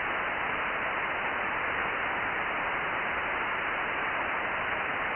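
Steady receiver hiss from an Icom IC-9700 transceiver tuned to the RS-44 satellite's linear transponder downlink, with no voice coming through the noise.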